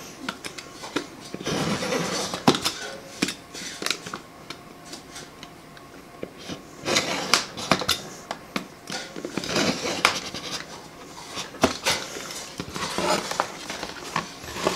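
Razor knife scoring a clear plastic face shield along a metal straight edge: several scratchy drawn strokes, with sharp clicks in between.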